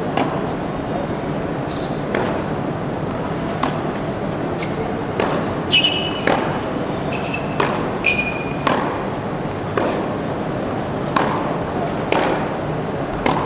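Tennis balls struck by rackets and bouncing on an indoor hard court during a practice rally: sharp knocks every half second to second and a half, with two short high squeaks near the middle and a steady murmur of a large hall behind.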